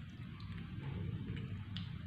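Baby monkeys shifting about in a wire cage: faint scattered clicks and rustles over a low steady hum.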